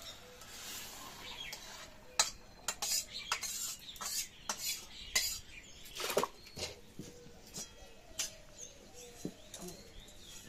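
Metal spatula scraping and clinking against a metal karahi as cooked curry is emptied out of it, with a string of sharp metal clanks about two to eight seconds in as the pan is handled and lifted off the stove with tongs.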